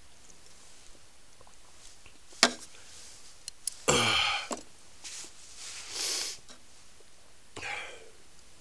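A person sniffing and breathing out noisily, three times, with a sharp click just before the first and loudest one.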